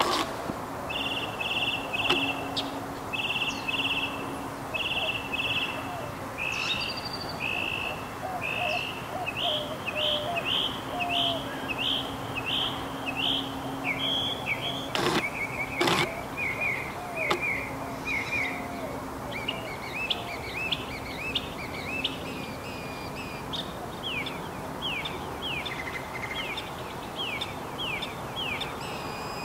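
Northern mockingbird singing: quick runs of short, repeated chirps, each phrase repeated several times before the bird switches to a new one. Two sharp clicks about halfway through.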